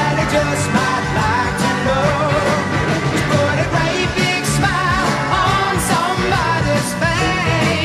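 Background music: a song with a singing voice, its pitch wavering in vibrato, over steady instrumental accompaniment.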